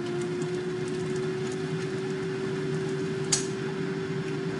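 Farberware air fryer running with a steady hum from its fan, while hot oil sizzles and spits faintly around an egg frying in a pan inside it; one sharper pop about three seconds in.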